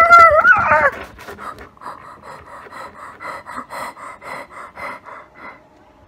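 A woman's vocal sound effects for a hand puppet: a loud, high cry that bends up and down for about the first second, then a run of short breathy pants, about three a second, that trail off near the end.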